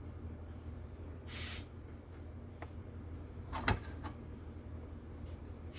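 Workbench handling sounds of small carburetor parts: two short hissy bursts and a brief clatter of clicks, over a steady low hum.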